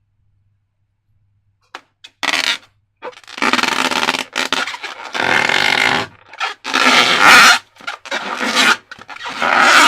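Slime squelching and squishing against the rubber of a transparent balloon, in a run of short bursts that starts about two seconds in.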